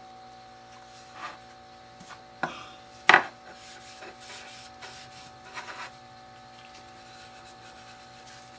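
Cloth wiping lacquer onto a small wooden bat: a few short rubbing strokes, the sharpest and loudest about three seconds in, then quiet rubbing.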